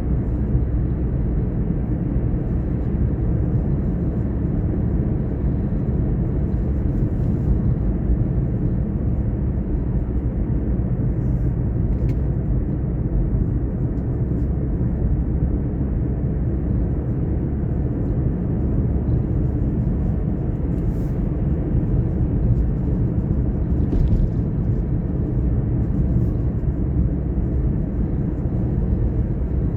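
Car driving at a steady pace: a constant low drone of engine and tyre noise.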